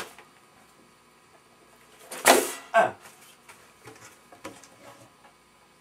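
A brief loud vocal outburst about two seconds in, trailing off in falling pitch, followed by a few soft knocks.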